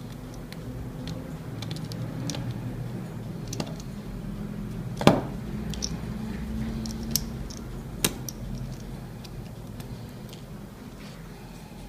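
Scattered small clicks and ticks of metal tweezers and a precision screwdriver working tiny screws out of a smartphone's midframe and setting them down on a tabletop. The sharpest click comes about five seconds in and another about eight seconds in, over a low steady hum.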